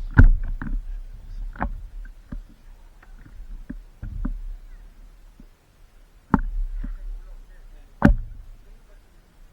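Water slapping and splashing around a paddleboard as a swimmer climbs back onto it: four sharp slaps, two near the start and two in the second half, over a low rumble.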